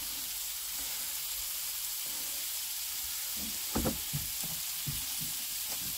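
Sirloin steak sizzling steadily in butter in a frying pan, with a few light knocks about three and a half to four seconds in.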